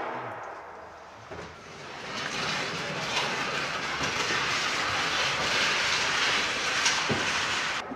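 Heavy steel maintenance stand being pushed across a concrete hangar floor: a steady rattling rumble that builds over the first two seconds and cuts off suddenly near the end.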